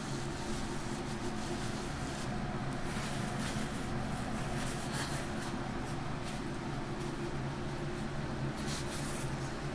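A steady low machine hum under faint rustling: a paper napkin being crumpled against the face, then hands rubbing together.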